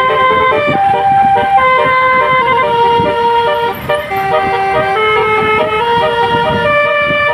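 Telolet basuri multi-note bus horn playing a tune: a run of held notes stepping up and down in pitch, each lasting under a second.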